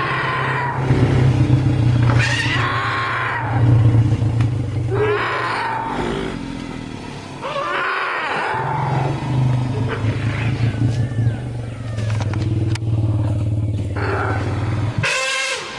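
A family of Asian elephants, calves among them, calling excitedly. High screeching calls come every two or three seconds over a steady low rumbling, with one loud shrill trumpet near the end. These are joyful vocalisations, mostly from the calves.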